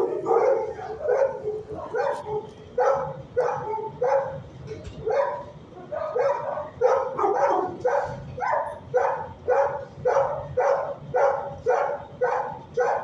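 A dog barking over and over, about two barks a second at a steady pace.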